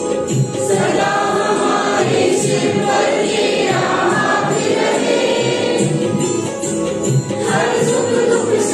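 Mixed group of men and women singing a prayer song together in unison.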